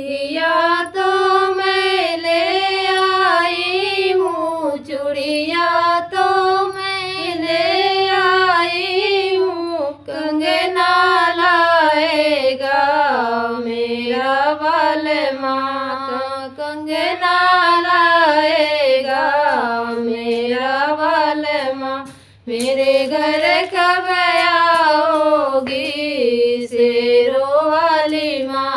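Two women singing a Hindi devotional song to the goddess (devi geet) together, unaccompanied, in long held, gliding phrases. There is a short break for breath about two-thirds of the way through.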